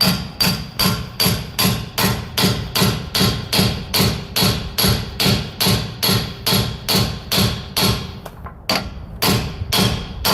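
Hammer blows on a bushing driver, pressing a new bushing into its bore: a steady run of sharp metallic strikes about two and a half a second. After a short pause near the end the tone of the strikes changes, the sign that the bushing has bottomed out flush.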